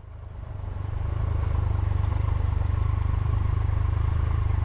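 Triumph Tiger 1200's three-cylinder engine running as the motorcycle rides along, growing louder over the first second and then holding steady.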